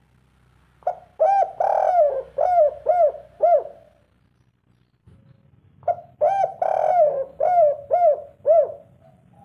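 Spotted dove cooing twice, about five seconds apart. Each phrase is a short opening note and a longer coo followed by three clipped 'kuk' notes: the 'kuk 3' song type.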